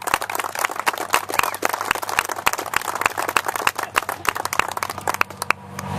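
A group of people applauding, a dense, irregular patter of hand claps that stops about five and a half seconds in.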